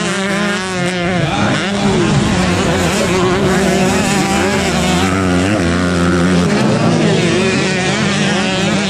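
Several trail dirt-bike engines racing on a motocross track, revving and shifting, their pitches overlapping and rising and falling as the bikes pass.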